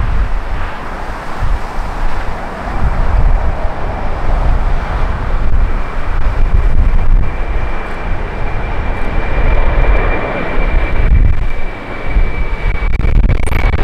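Boeing 747-400F freighter's four jet engines at takeoff power as it lifts off and climbs overhead: a loud, heavy rumble with a steady high whine that grows stronger in the second half and falls slightly in pitch.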